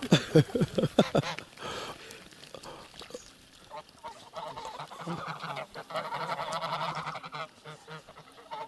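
A flock of domestic geese honking while chasing a cat: a quick run of honks falling in pitch in the first second or so, then a lull, then a denser stretch of calling from about five seconds in.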